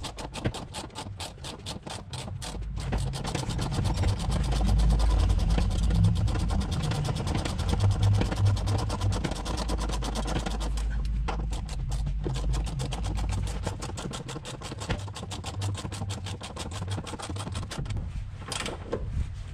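Rapid, evenly spaced clicking of a tool turning a subframe bushing bolt over a low hum, tightening the bolt to draw a new subframe bushing up into place.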